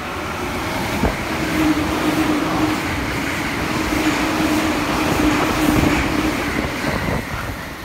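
JR East E657 series limited express electric train passing through the station at speed without stopping: a loud, steady rush of wheels on rail with a low steady hum and a few sharp rail clicks, easing off near the end as the last car goes by.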